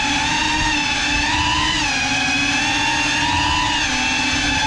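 FPV quadcopter's brushless motors and propellers whining, the pitch dipping and rising a few times with throttle changes.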